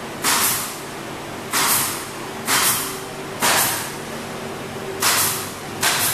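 Temperature and humidity test chamber running with a steady hum and a faint steady tone, broken by six sharp hisses about half a second each, coming roughly once a second.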